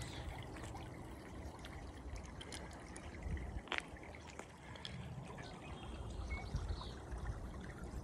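Creek water trickling steadily, with a few faint high bird calls from the marsh.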